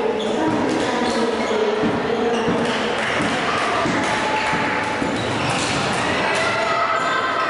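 Game sounds in an indoor sports hall: several voices calling out at once over the hall's echo, with scattered sharp knocks of ball play.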